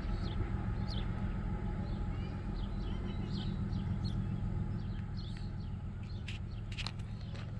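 Birds chirping over a low, steady rumble that slowly fades, with a few sharper chirps near the end.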